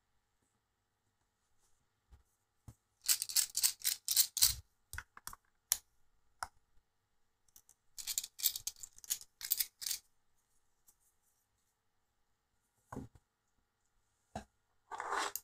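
Small sharp clicks and taps from handling a carbon-fibre quadcopter frame, small screws and a hex screwdriver on a work mat, in several short flurries with gaps between.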